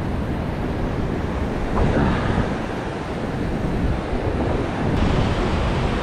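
Ocean surf washing and foaming around shoreline rocks, with wind buffeting the microphone. A wave surges in about two seconds in, and another near the end.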